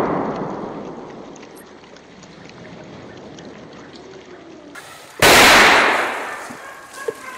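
The long echo of a hunting rifle shot dies away over the first two seconds. About five seconds in, another rifle shot goes off, its echo rolling away over a second or so.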